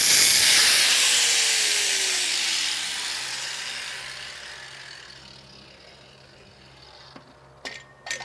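DeWalt angle grinder grinding down tack welds on a steel pipe, then switched off and winding down, its whine falling in pitch as the sound fades over several seconds. Near the end, two sharp metallic clanks, one ringing briefly.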